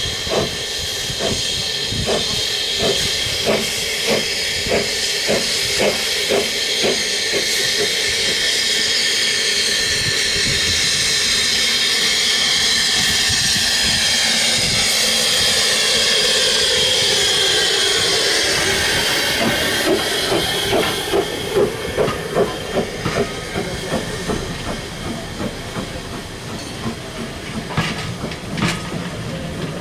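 SECR P Class 0-6-0 tank engine No. 323 'Bluebell' approaching with regular exhaust beats, then a loud steam hiss with tones falling in pitch as it passes close. Its carriages follow, their wheels clicking over the rail joints.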